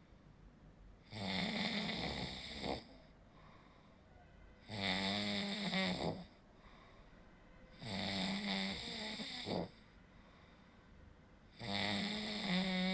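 A sleeper snoring steadily: four snores about three and a half seconds apart, each about a second and a half long with a low buzzing tone, with quiet breathing in between. The snores are throat tissue vibrating as airflow is partly blocked in sleep.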